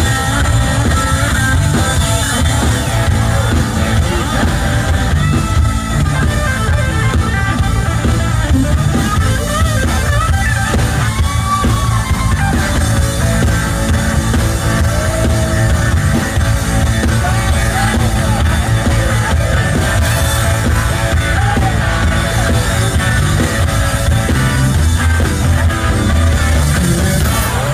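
Live rock band playing: electric guitars and drum kit with singing at times, loud and continuous, heard from the audience.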